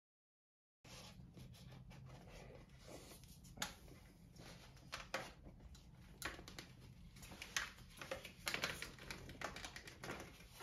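Faint, irregular clicks and rustles of hands threading a rubber Voile strap through a top tube bag and around the bike frame, getting busier towards the end. It begins with a brief moment of dead silence.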